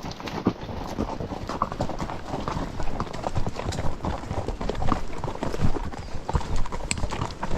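Horse hooves clip-clopping on a trail under a rider, a run of irregular knocks throughout.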